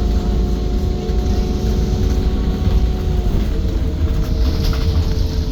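Menarinibus Citymood 12 CNG city bus running: a deep rumble with several steady whining tones, which drop and shift in pitch a little past halfway through.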